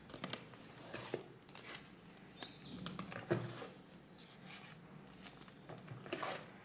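Faint handling noises of unboxing: cardboard packaging and a crinkly foil pouch rustling, with scattered light taps and clicks, the strongest about three seconds in.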